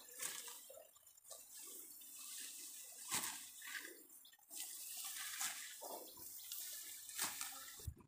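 Dry rice stalks and leaves rustling and crackling as ripe upland rice plants are pushed through and handled, with scattered light snaps.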